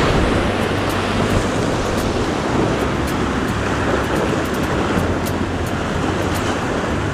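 Sea waves surging and washing over shoreline rocks, a steady loud rush, with wind buffeting the microphone.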